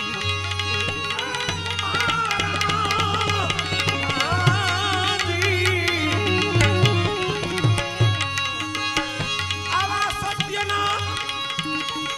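Bhajan accompaniment: tabla keeping a steady rhythm under a melodic line that wavers and bends in pitch.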